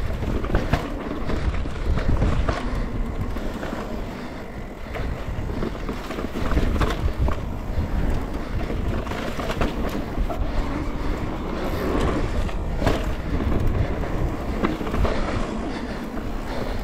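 Mountain bike rolling fast down rocky dirt singletrack: knobby tyres crunching over dirt and rocks, with the bike rattling and clattering over bumps. Wind rumbles on the microphone.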